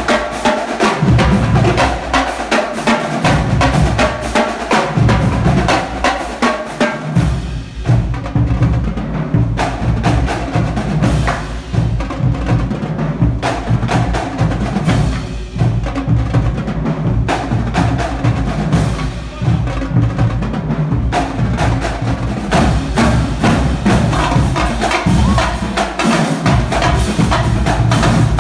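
Marching drumline playing a fast, loud cadence: rapid strokes on tenor drums and snare drums over heavy bass drum hits, with cymbals.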